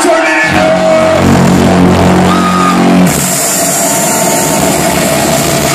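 Drum and bass DJ set playing loud through a club sound system. A deep held bass chord sounds for about two and a half seconds, then about three seconds in the low end drops away and a bright hiss takes over.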